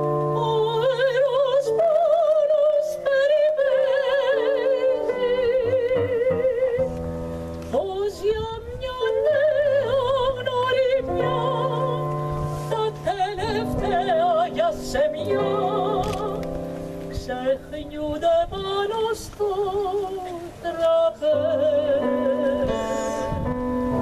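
A woman singing in operatic style with wide vibrato, over held notes of an instrumental accompaniment.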